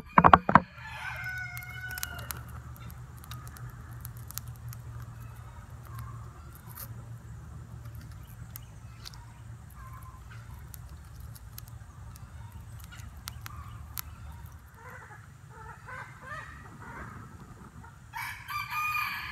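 A rooster crowing: once about half a second in, fainter calls later, and a louder crow near the end. A steady low hum and scattered faint clicks run underneath.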